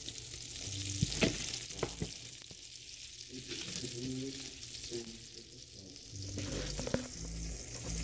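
Bacon-wrapped meatloaf patties pan-frying in their grease: a steady sizzling hiss, with a few sharp clicks about a second in, near two seconds and near seven seconds.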